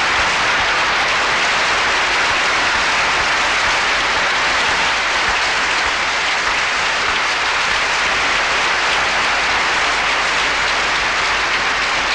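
Large audience applauding, a dense, steady clapping that holds at one level throughout.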